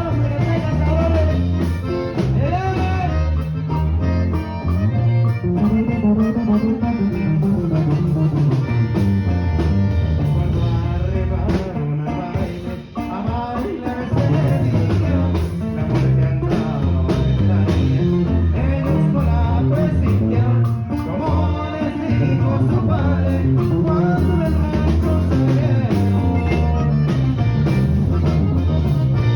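Band music with a singer, guitar and a strong bass line, played loud and continuous, with a brief dip about twelve seconds in.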